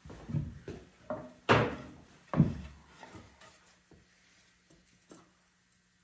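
A wooden block knocking and clattering against the cast-iron engine block and its new wet cylinder liners as it is picked up and set in place to tap the liners down. The knocks are irregular, the two loudest about a second apart near the middle, with fainter ones after.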